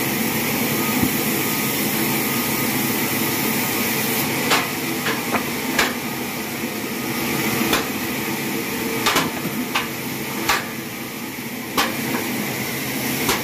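Irregular sharp knocks, about ten of them starting a third of the way in, over a steady machine hum.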